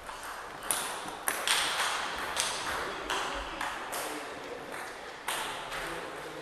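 Table tennis balls striking table and bats, a handful of sharp, irregular ticks, each with a short echo from the hall.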